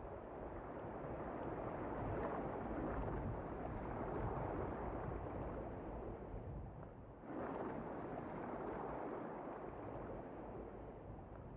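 Rushing sea and water noise with a low rumble, steady and without any tune, that swells suddenly about seven seconds in and then slowly fades.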